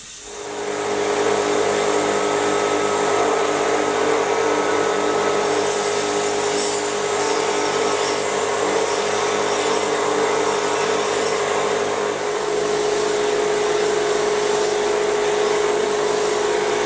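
Knife-making belt grinder spinning up and then running at turned-down speed with a steady hum, as a blade is ground against the belt. The grinding and the hiss of the compressed-air mist coolant spray fill the upper range.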